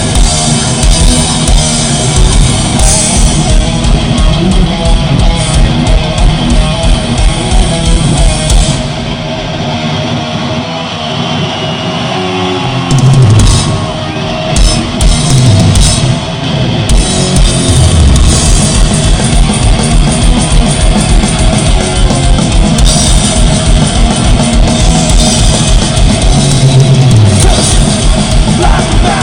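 Heavy metal band playing loudly, with fast drums and distorted electric guitars. About a third of the way in the band thins out to sliding, falling guitar notes for several seconds, then the full band comes back in.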